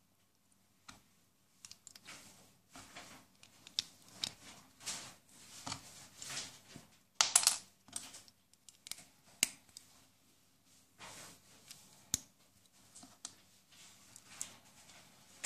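Small plastic construction bricks (Lego and Mega Bloks) clicking, snapping and rattling as they are handled and pressed together on the model. A louder clatter comes about halfway through, and a single sharp snap a few seconds later.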